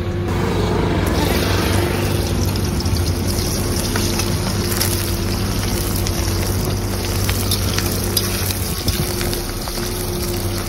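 Sliced onions sizzling in hot oil in an iron kadai, the hiss starting about a second in, with a slotted metal spatula clinking and scraping against the pan now and then. Under it runs a steady low hum.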